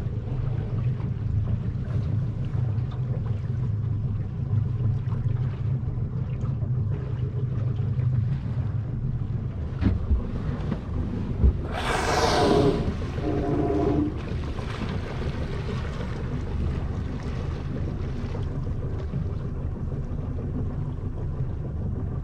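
Grey whale surfacing and exhaling through its blowhole: one loud, rushing blow about halfway through, over a steady low rumble.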